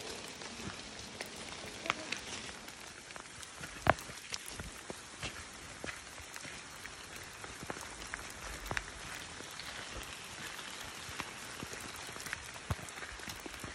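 Steady rain hiss with scattered sharp taps of close drops, one louder tap about four seconds in.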